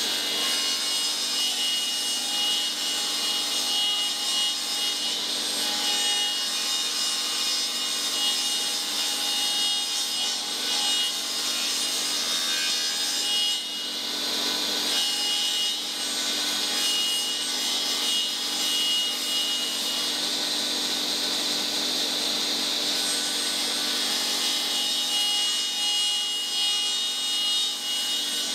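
Table saw running and ripping a thin batten of wood lengthwise, the blade cutting steadily through the board. The sound eases briefly about halfway through, then the cutting carries on.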